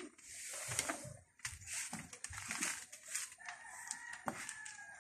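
A rooster crowing in the background, a faint held call in the second half, over several bursts of rustling noise.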